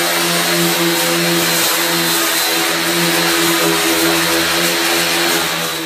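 Large angle grinder with a 36-grit disc running at a steady pitch, grinding down butt welds on sheet steel.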